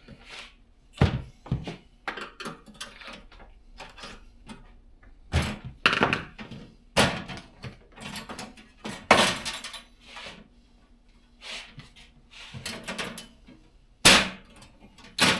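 Irregular thunks and knocks of a diesel heater's casing and parts being handled as its cover is opened up, with a few sharper clunks about a second in and near the end.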